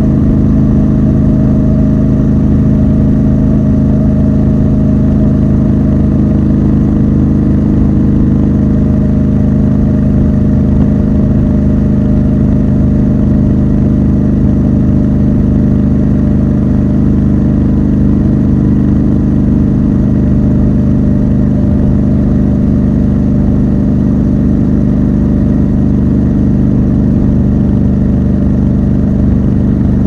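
Triumph Scrambler 1200 XC's parallel-twin engine and exhaust running at steady cruising revs, heard from the rider's seat, the engine note holding almost constant in pitch.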